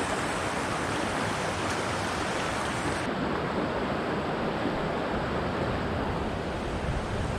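Mountain stream water flowing steadily, a constant rushing noise; it turns a little duller about three seconds in.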